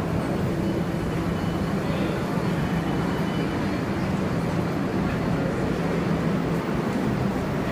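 R62A subway train's steady rumble with a low drone.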